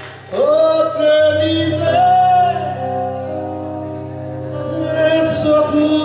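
Male voice singing long, held phrases that slide up into pitch, over sustained electric bass notes, in a live band performance. The voice comes in about a third of a second in, after a brief dip.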